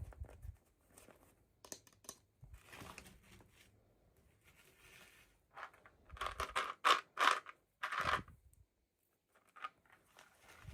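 Toy packaging being handled and opened by hand: short crinkling, scraping and tearing strokes, with a run of louder ones about six to eight seconds in.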